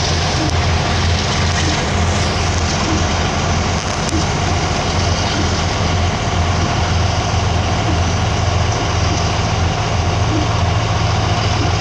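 CSX freight train of open hopper cars rolling steadily past, a constant rumble over a low, steady engine hum.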